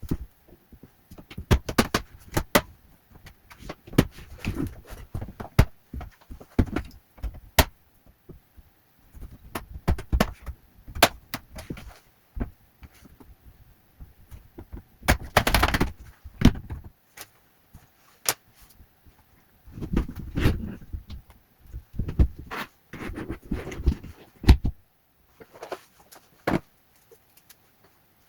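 Irregular clicks, taps and short scrapes of small tools and plastic and metal parts being handled while a laptop is taken apart for a fan replacement.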